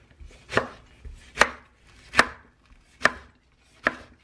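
Chef's knife slicing a Korean green onion (daepa) into rounds on a wooden cutting board: five sharp knife strikes on the board, evenly spaced about one every 0.8 seconds.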